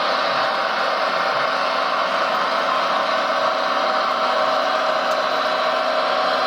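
Radio-controlled model machine's small motor running steadily, a constant whir with no change in pitch or level.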